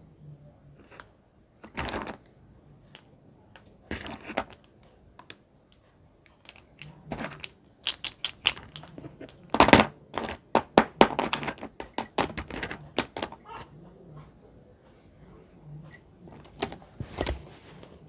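Hard lumps of grey edible clay (nakumat) clattering and knocking against each other as a hand rummages through them in a cardboard box. Irregular clicks and knocks, sparse at first, coming thick and fast through the middle, with the loudest knock a little before ten seconds in.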